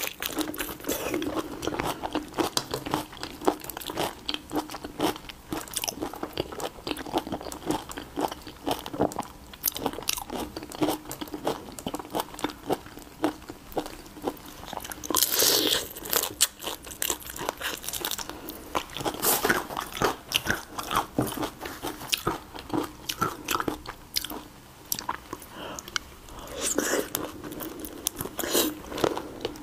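Close-miked eating of raw shrimp: dense clicks and crackles of shells being bitten and cracked, with wet chewing and sucking at the shrimp. There are a few louder, hissier sucking moments around the middle and near the end.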